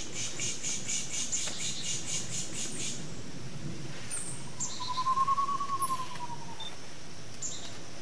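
Bird-calling imitation of an alarm sound: a rapid run of hissing pulses, about six a second, for roughly three seconds, then a wavering whistled trill that rises and falls, in the manner of an eastern screech owl. Short high chip notes from songbirds answer around it.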